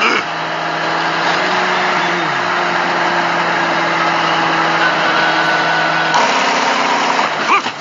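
A vehicle engine running steadily under a hiss like road noise, with a short falling tone about two seconds in and a change in the sound about six seconds in.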